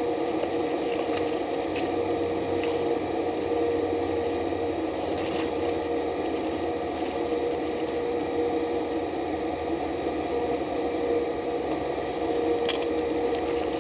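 A steady mechanical hum with a constant mid-pitched tone, and a few faint ticks scattered through it.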